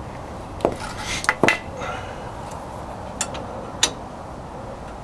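Light metal knocks and clinks from tapping on a wheel hub assembly to work it loose: three sharp knocks in the first second and a half, then two fainter clicks about three to four seconds in.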